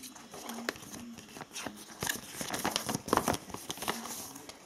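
A folded paper instruction leaflet rustling and crinkling as it is handled and unfolded by hand, in irregular crackles that are busiest in the middle.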